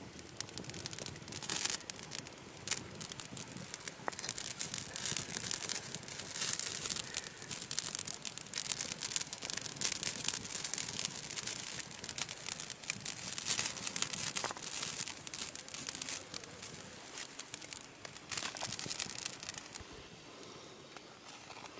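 Continuous crackling and sizzling from a pot of castor seed mash cooking over a small wood fire, full of sharp little crackles; it eases off near the end.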